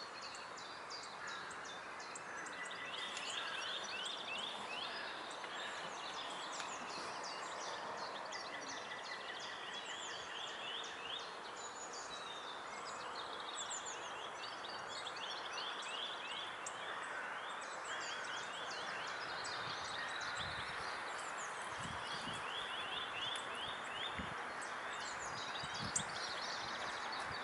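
Small birds singing in the park trees: many rapid, repeated trills and chirps over a steady background hum of distant ambient noise. A few low thumps near the end.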